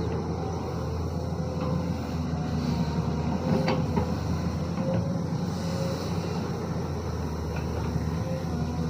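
Hydraulic excavator's diesel engine running steadily, with a few light knocks.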